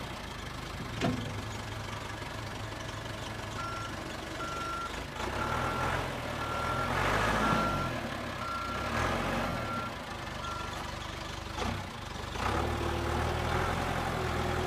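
Backhoe engine running, with its reversing alarm giving a run of about ten evenly spaced beeps as the machine backs up. The engine rises in level twice.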